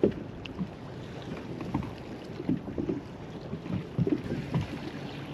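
Water lapping around a small kayak, with wind buffeting the microphone and a few scattered small knocks and splashes.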